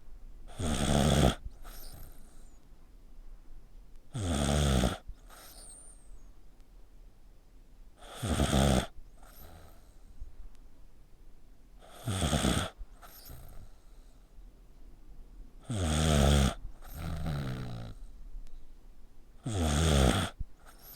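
A sleeping pet snoring like a person: six snores about every four seconds, each well under a second long, most followed by a softer breath out.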